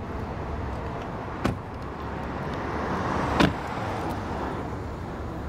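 An SUV's car door shuts with a thud about three and a half seconds in, after a lighter knock about a second and a half in, over a steady low hum.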